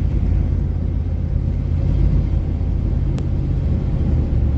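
Steady engine and road rumble inside the cab of a 1998 Chevy C1500 pickup cruising, with a faint click about three seconds in.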